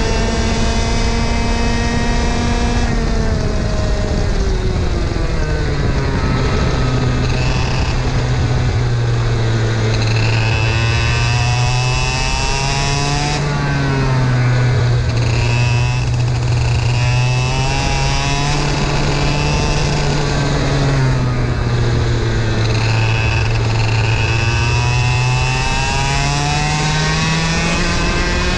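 High-performance 100cc two-stroke racing kart engine at full throttle on a lap. Its pitch is high and steady at first, drops away about three seconds in as the kart slows for a corner, then rises and falls several times through the turns before climbing again near the end.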